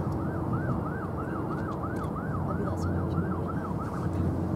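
A siren in a fast rising-and-falling pattern, about three sweeps a second, fading out near the end, over a steady low hum.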